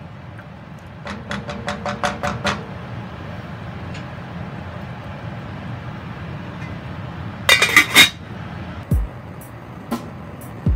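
A wooden spatula stirring carrots in a stainless steel pot, knocking against the pot in a quick run of about seven ringing clinks. Then a louder, tight cluster of sharp knocks comes about seven and a half seconds in. Background music with a drum beat enters near the end.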